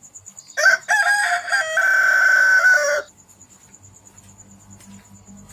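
A rooster crowing once: broken opening notes and then a long held note, about two and a half seconds in all, cutting off suddenly.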